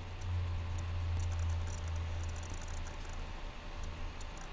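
Low steady hum with faint scattered clicks of a computer mouse and keyboard, picked up by a screen-recording microphone while the presentation is navigated.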